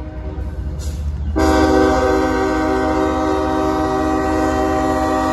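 A CSX freight locomotive's air horn blowing for a grade crossing: silent for about the first second and a half, then one long, steady blast that holds to the end, over a low rumble.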